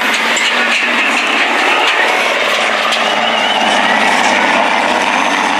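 Big rig's diesel engine running flat out under heavy load while dragging a weight-transfer sled down a dirt pulling track; loud and steady, without a break.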